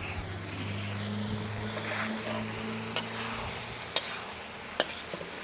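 Beef and vegetable stir-fry in oyster sauce and gravy sizzling in a wok over a gas wok burner, with a metal spatula stirring and clicking sharply against the wok a few times. A low hum runs under it for about the first three seconds.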